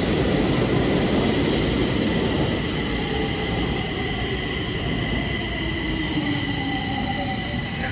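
Metro train running through an underground station: a loud rumble with a steady high whine, and a low tone sliding down in pitch over the middle seconds as the sound eases off slightly.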